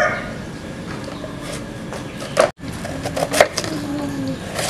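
A knife cutting through a raw chayote and knocking on a wooden cutting board: a few sharp knocks over a low background hiss.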